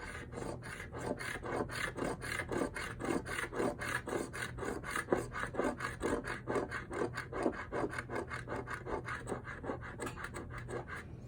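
Scratch-off lottery ticket being scratched: rapid rasping strokes across the coating, about four a second.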